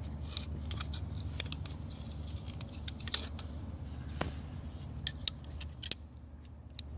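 Small handling sounds: scattered light clicks and taps as a flashlight's glass lens is laid on plastic safety goggles, over a steady low hum.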